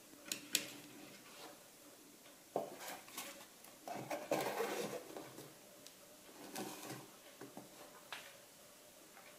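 Hands handling cardboard boxes and photographic paper: two sharp clicks near the start, then bursts of rustling and clattering, the busiest a few seconds in.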